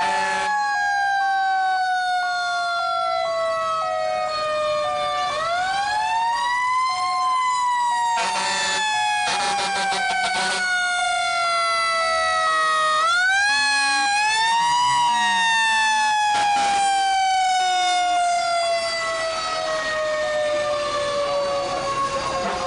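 Fire engine's siren winding up and then slowly coasting down in pitch, re-winding about every eight seconds, the slow wind-down typical of a mechanical siren. Short horn blasts sound between the wails.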